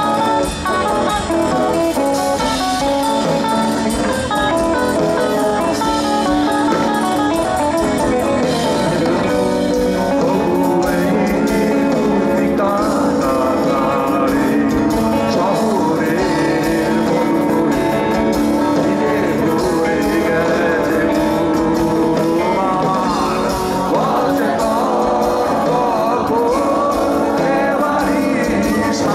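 Live rock band playing through a concert PA: electric guitar lines over bass and drums, with a man's voice starting to sing over the band about ten seconds in.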